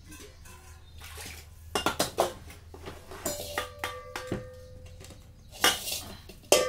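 Stainless steel cookware clattering as pots and bowls are handled: a few sharp clanks about two seconds in, then a steel vessel ringing for about a second in the middle, and more clanks near the end, the loudest at the very end.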